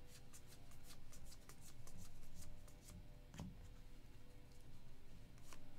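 2024 Panini Score Football trading cards being flipped through by hand: quick, soft flicks and slides of card stock, thickest in the first few seconds, with one sharper tap a little past halfway.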